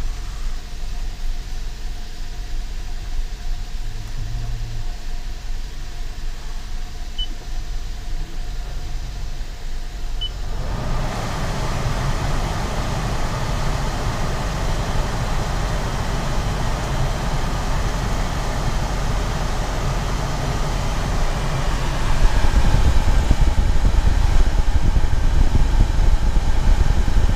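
Second-generation Toyota Prius with its 1.5-litre four-cylinder petrol engine idling steadily in maintenance mode, heard from inside the cabin. Two short touchscreen beeps as the air conditioning is switched on, then about ten seconds in the blower fan starts with a steady rush of air from the dash vents, getting louder a few seconds before the end.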